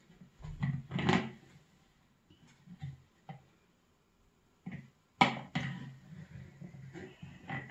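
Metal spoon stirring and scraping in a plastic jug, working stiff flan mix into a smooth paste. Irregular scrapes and knocks, loudest about a second in and again from about five seconds in, with a quiet spell between.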